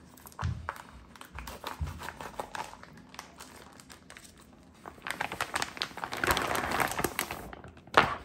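Plastic vacuum-pack film around a rack of pork spareribs crinkling and crackling as it is cut and peeled off, busiest in the second half, with a sharp crackle near the end.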